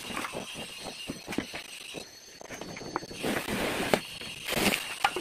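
Leafy branches rustling and twigs snapping, with scattered clicks and knocks. Two louder rushes of rustling come about three and about four and a half seconds in.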